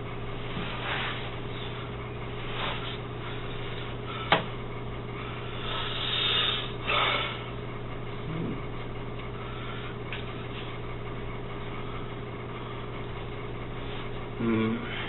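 Steady low electrical hum, with a sharp click about four seconds in, a couple of brief rustles a few seconds later, and a short pitched sound near the end.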